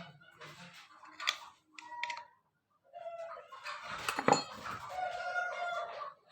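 A long, drawn-out animal call held for about three seconds, starting about three seconds in, with short calls and knocks before it and a sharp knock in the middle of it.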